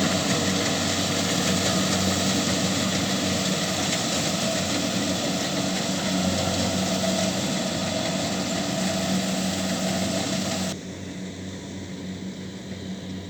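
Kubota DC70Plus rice combine harvester running steadily, a diesel engine drone mixed with the rush of its working machinery. Near the end the sound drops suddenly to a quieter, duller drone.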